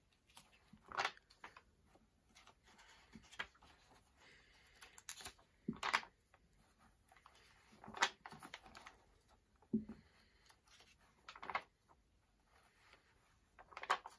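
Pages of a paper sticker album turned by hand, a series of short rustling swishes, one every one to two seconds.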